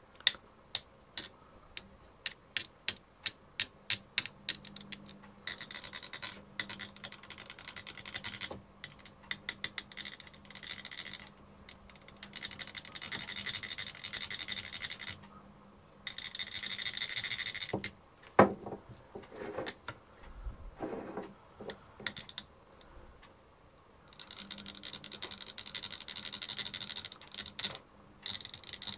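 Screwdriver tip striking the metal body of a car knock sensor in a quick series of light clicks, about three a second. It then scrapes and rubs across the sensor in several spells, with scattered single taps and one louder knock about two-thirds of the way through. The sensor is being struck to test its output on an oscilloscope.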